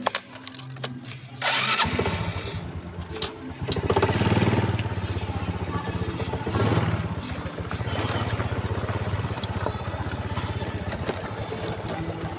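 A small engine comes in about two seconds in and runs with a steady pulsing beat, swelling louder twice.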